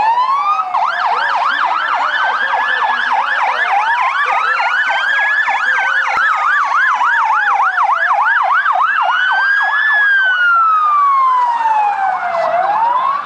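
Two sirens sounding together: one slow wail rising and falling over several seconds, and a fast yelping warble of about four cycles a second over it. The fast yelp stops about nine seconds in, and the slow wail goes on alone.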